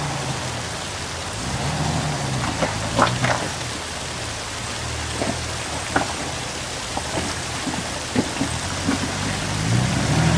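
Off-road Jeep's engine revving up and falling back as it crawls over rocks, over a steady hiss. Sharp knocks and clunks come every second or so through the middle, the loudest about three seconds in.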